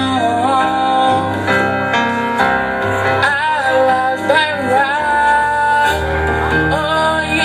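A song playing: a single singing voice with vibrato over sustained chords and a bass line that steps to new notes every second or two.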